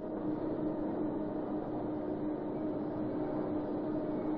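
A steady, unchanging hum with a hiss behind it.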